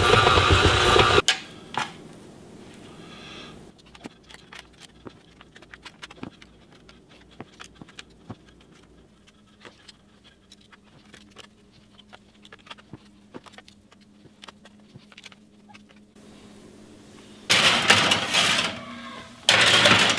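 A KitchenAid stand mixer runs through stiff cookie dough for about a second, then stops. Then come quiet, scattered clicks and scrapes of dough being spooned onto metal baking sheets. Near the end there is a louder clatter of a metal baking sheet going into the oven.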